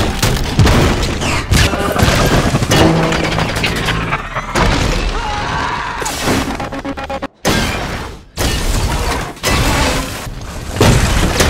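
Film-soundtrack explosions, one after another, with crashing and shattering debris over a music score. The sound cuts out abruptly twice, briefly, about two-thirds of the way through, where one clip is spliced to the next.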